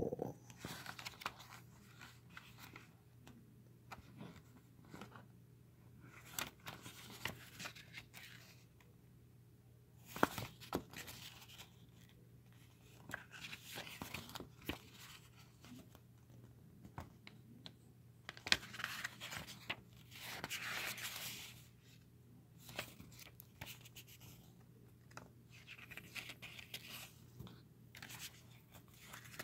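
Glossy pages of a Blu-ray booklet being handled and turned: intermittent paper rustles, slides and small taps, with one longer rustle about two-thirds of the way in. A faint steady low hum sits underneath.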